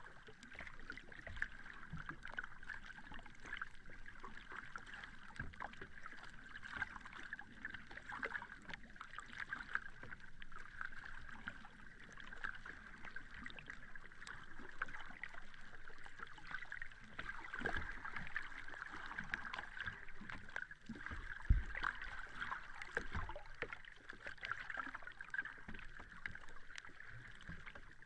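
Sea water sloshing with a steady fizzing crackle, and a few low thumps, the loudest about 21 seconds in.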